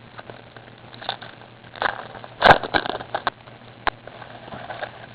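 Trading cards being handled and flipped: short rustles and clicks of card stock, with one louder crackly rustle about halfway through.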